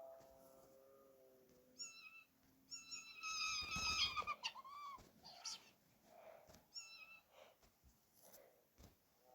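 Recorded weird cat sounds played back: short high-pitched chirping meows at about two, three and seven seconds in, with a louder, rougher cat cry around three to four seconds. A faint held tone fades out over the first second and a half.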